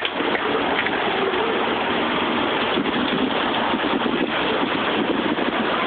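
Dust-storm wind rushing steadily, with no let-up.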